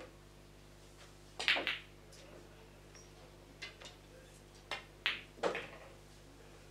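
Pool balls clicking: a sharp knock of a shot about a second and a half in, and two more sharp clicks about five seconds in.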